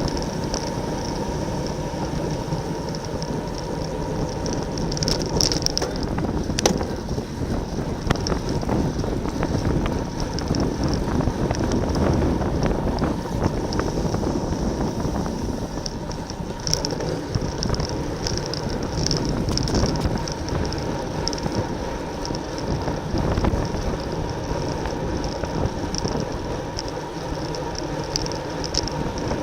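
Road bike riding at race speed in a pack: wind rushing over the on-bike camera microphone with tyre and drivetrain noise, broken by a few short spells of high rapid ticking from coasting freehubs.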